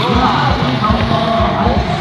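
Loud music with singing, mixed with a motorcycle engine running close by.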